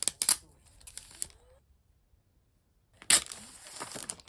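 Packaging handled close to the microphone: a few sharp clicks and taps at the start, then about a second of crinkling noise near the end.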